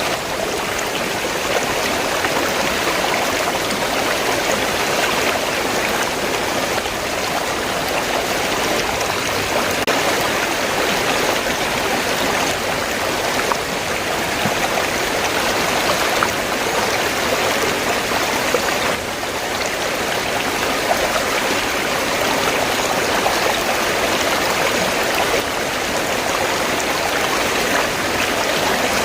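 River water flowing steadily: a continuous, even rush of moving water, with a brief dip in level about two-thirds of the way through.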